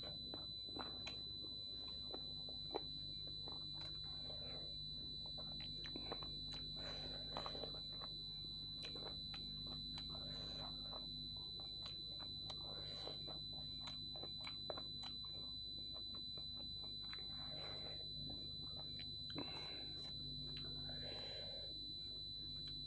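Eating by hand: soft wet mouth clicks and chewing of dhido and chicken curry, many small scattered ticks. Underneath runs a steady high-pitched electronic whine and a low hum, the most constant sound.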